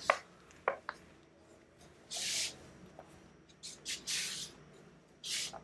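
Short hissing strokes on a whiteboard: four swipes, the longest about two seconds in and about four seconds in.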